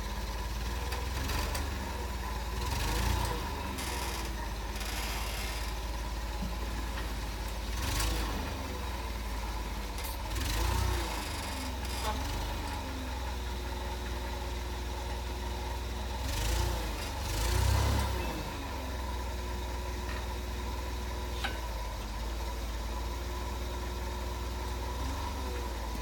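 Daewoo G20SC LPG forklift engine running steadily, revving up and falling back several times as the truck manoeuvres.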